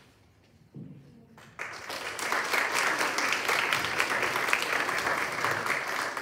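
Audience applauding. The applause starts about a second and a half in and stays at full strength, then starts to fade near the end.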